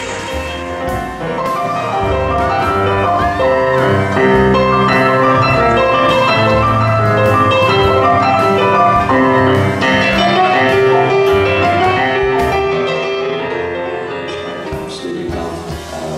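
Electronic keyboard playing a piece of sustained chords with a melody over low bass notes. The music fades down near the end.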